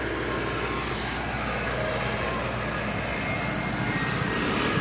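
Motor engines and road noise in traffic, with a faint melody of a few separate notes over it: a garbage truck's music jingle, the kind an ice-cream seller would play in Indonesia.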